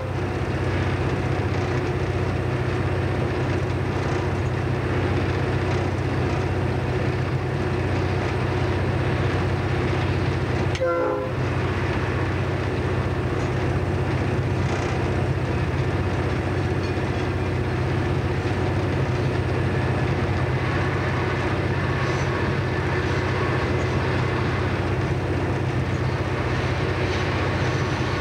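Diesel locomotive engine droning steadily, heard from inside the cab as the train runs along the track, with a brief horn blast about 11 seconds in, a warning for the level crossing just ahead.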